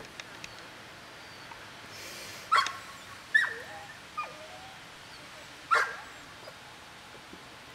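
A dog barking: four sharp barks spread over about three seconds, some sliding down in pitch.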